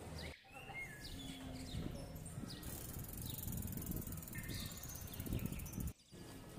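Quiet city street ambience with a low background hum and scattered short bird chirps. The sound cuts out briefly twice.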